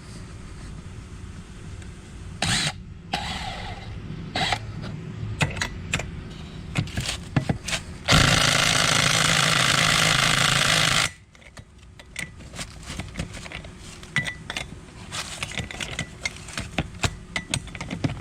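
Power impact wrench hammering on a golf cart wheel's lug nuts in one steady three-second burst about eight seconds in, which stops abruptly. Scattered clicks and clanks of tools being handled come before and after.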